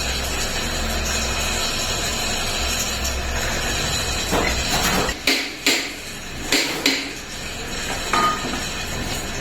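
Several sharp metal knocks and clinks, as of steel gearbox parts or a tool being struck and handled, clustered from about four to seven seconds in with a fainter one near eight seconds. A steady low hum runs under the first half.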